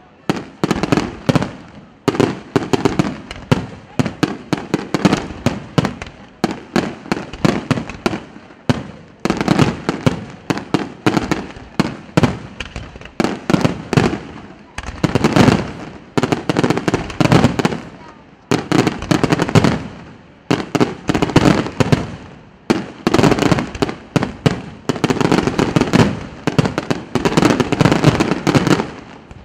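Aerial fireworks display: shells launching and bursting in quick succession, with dense bangs and crackling popping in surges every second or two.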